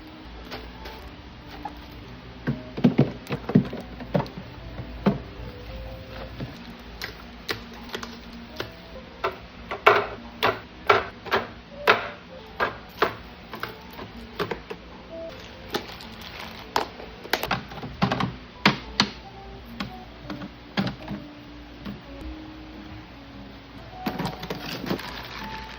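Irregular light clicks, taps and knocks, one or two a second and busier in a few runs, of packaged groceries being handled and set down while restocking a small fridge, over soft background music.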